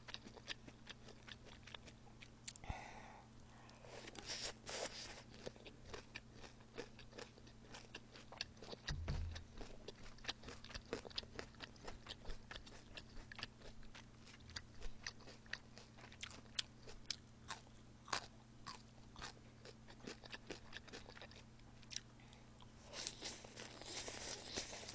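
Close-miked chewing and crunching of a shredded raw cabbage and vegetable salad: faint, irregular small mouth clicks and crunches throughout, with a soft low bump about nine seconds in.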